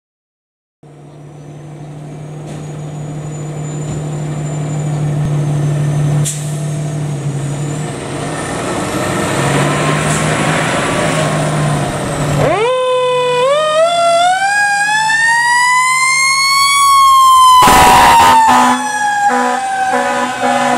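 A fire truck's engine running as it pulls out. About halfway through, a Federal Signal Q mechanical siren starts to wind up, its wail rising for several seconds. Then comes a long air horn blast and a string of shorter ones, while the siren starts to wind down.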